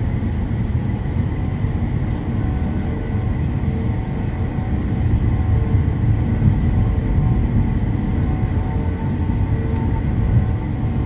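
A car on the move: a steady rumble of road and engine noise with no clear changes.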